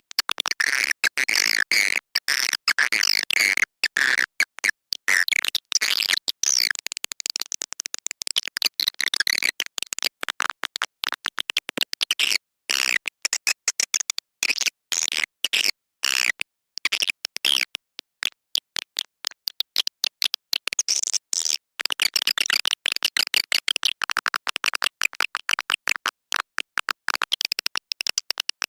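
Swiftlet lure call recording: a dense stream of high edible-nest swiftlet chirps and twitters, chopped by many short breaks. It is played to draw swiftlets into a swiftlet house to roost and nest.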